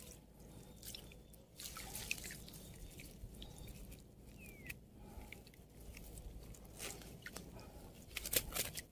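Faint water splashing and dripping with small scattered clicks, as a mesh catch bag is handled in shallow water at the surface. A short cluster of sharper splashes comes near the end.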